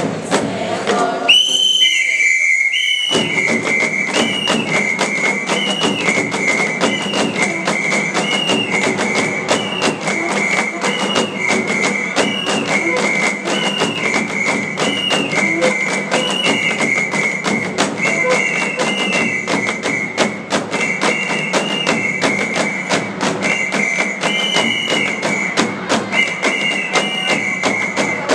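Traditional dance music: drums keep a steady beat under a shrill whistle held on one high note, with a short upward flick about once a second. About a second in, everything but the whistle drops away briefly, and the drums come back in about two seconds later.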